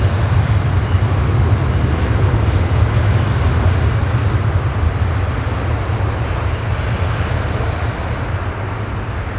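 Twin jet engines of a Boeing 767-300ER freighter at takeoff thrust during its takeoff roll. It is a loud, steady rumble that eases off slightly over the last few seconds as the aircraft moves away down the runway.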